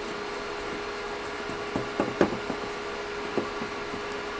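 Soft knocks and taps of a hand pressing a breaded pork chop into breadcrumbs in a ceramic bowl, several close together about two seconds in and one more a little later, over a steady low hum.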